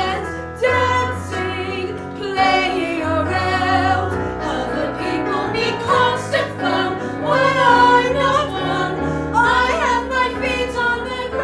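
Show tune from a musical: a woman singing long held notes with vibrato over an instrumental accompaniment.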